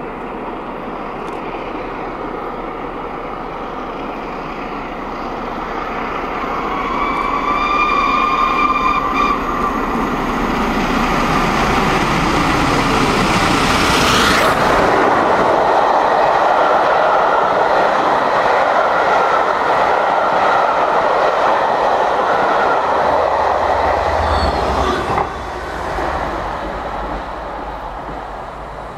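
The three-cylinder steam locomotive 60163 Tornado, an LNER Peppercorn A1 Pacific, is working hard uphill. Its exhaust grows louder as it approaches, and its whistle sounds once for about two seconds. It passes close by about halfway through, then the train's carriages roll past until the sound drops away suddenly a few seconds before the end.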